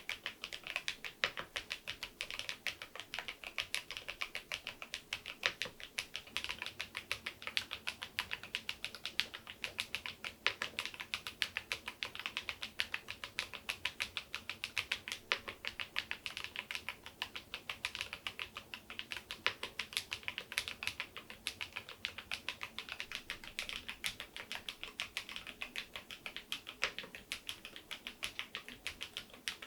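Typing on a Keysme AIM04 HE aluminium keyboard with magnetic switches, fitted with swapped keycaps: a steady, continuous run of quick key clacks, several a second.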